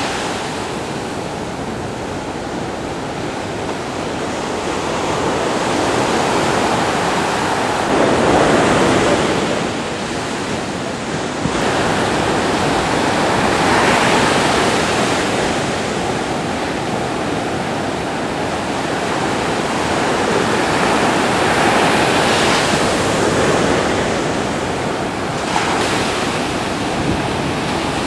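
Ocean surf breaking on a beach: a continuous wash of waves that swells several times as larger breakers crash, loudest about eight seconds in.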